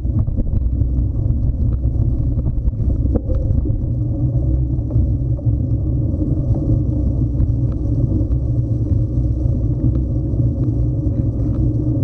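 Steady low rumble of an action camera riding over a rough, leaf-covered forest trail: trail vibration and wind on the microphone, with many small clicks and rattles from the mount.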